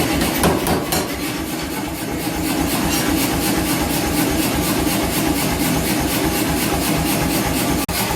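Power hammer running, a steady rhythm of about four to five strokes a second, with a brief dropout near the end.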